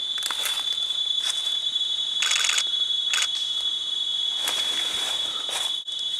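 Steady high-pitched drone of rainforest insects, with short bursts of leaves rustling about once a second.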